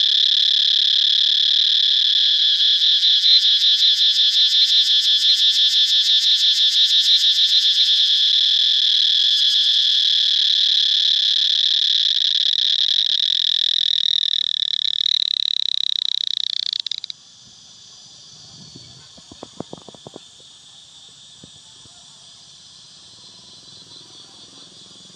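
Loud, high-pitched, continuous calling of animals, with a fast pulsing running through it. It cuts off suddenly about two-thirds of the way in, leaving a faint hiss and a few soft clicks.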